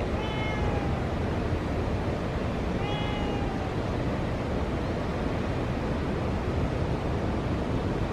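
A cat meowing twice, short calls falling slightly in pitch, about three seconds apart, over a steady rushing background.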